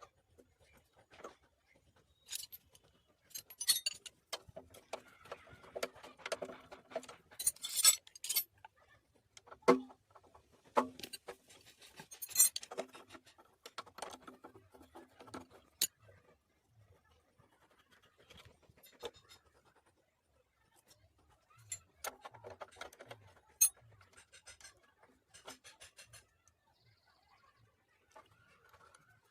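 Metal hand tools and engine parts clinking, tapping and scraping in irregular clusters of sharp clicks and knocks, with quieter gaps between them.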